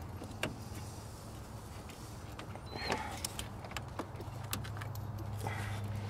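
Hands working a new rubber radiator hose onto its fitting in a car's engine bay: scattered light clicks and knocks, with a brief squeak about three seconds in, over a low steady hum.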